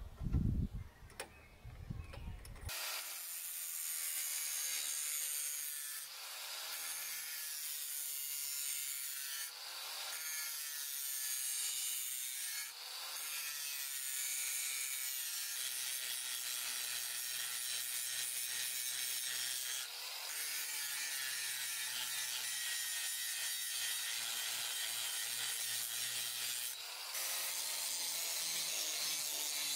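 Angle grinder grinding the bevel on a steel leaf-spring knife blade, a steady high grinding hiss with short dips every few seconds between passes. It starts about three seconds in, after a few knocks as the blank is clamped down with C-clamps.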